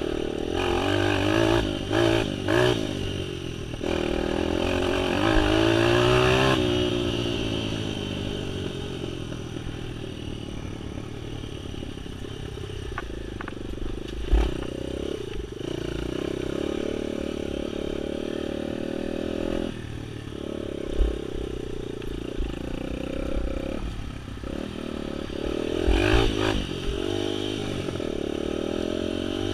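Small off-road vehicle engine revving up and easing off in waves as it rides a rough dirt trail, then running more steadily, with sharp knocks and clatter as the machine jolts over bumps.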